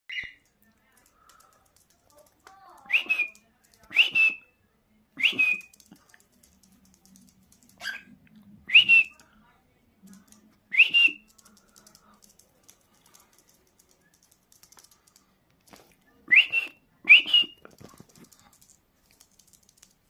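Cockatiel giving short, sharp whistled calls that sweep up in pitch, about nine of them, some in quick pairs, with quiet pauses between.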